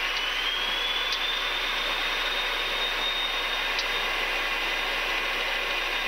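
Cessna Citation's twin turbofan engines at takeoff power on the takeoff roll, heard from inside the cockpit: a high whine rises over about the first second and then holds steady above a loud rushing noise as the jet accelerates down the runway.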